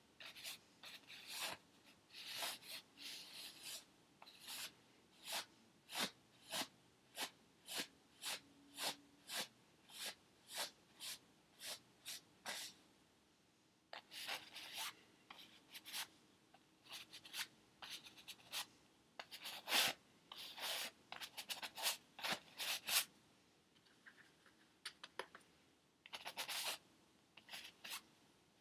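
Paintbrush strokes on a stretched canvas: short scratchy brushing strokes, about one or two a second, with a pause of about a second midway.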